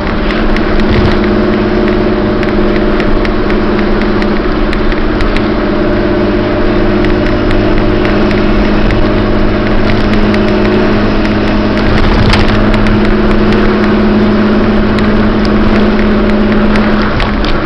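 Ford Ranger's 2.9 L V6 running through a Flowmaster 40-series muffler while cruising, a loud exhaust note holding a steady pitch.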